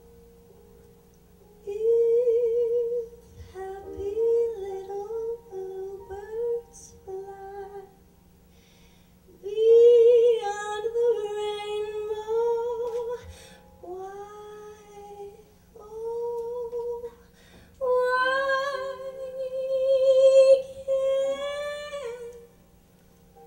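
A woman singing solo into a microphone, in phrases of long held notes with wide vibrato separated by short pauses. The phrases near the end sit higher and louder.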